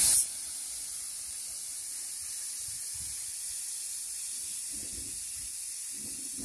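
Crushed stone aggregate pouring steadily out of a truck's tailgate opening onto a heap: a continuous hissing rush of gravel, after a brief louder rush at the very start.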